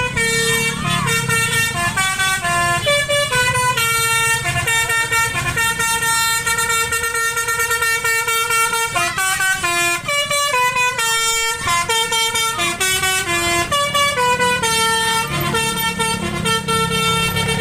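Bus basuri horn, a multi-tone 'telolet' air horn, playing a tune of held notes that step up and down one after another, over the low running of the bus engine.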